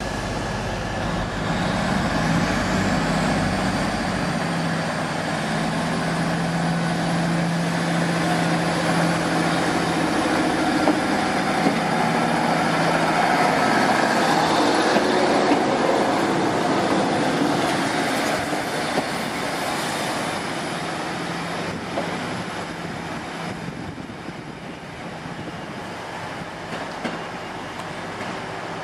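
Class 153 diesel railcar running, heard from inside the carriage: a steady underfloor diesel engine note with wheel and rail noise. The sound grows quieter over the last several seconds.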